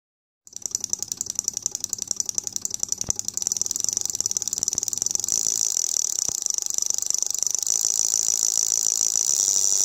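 Rapid clicking of an 8-channel relay module switching the solenoids of a 12-volt solenoid V8 model engine. It starts about half a second in and speeds up into a fast, even rattle.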